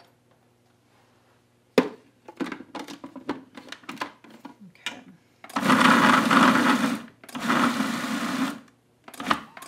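Plastic clicks and knocks as a food processor's lid and pusher are fitted on the bowl, then the food processor motor whirs in two pulses, about a second and a half and then about a second long, chopping chunks of super-firm tofu into crumbs.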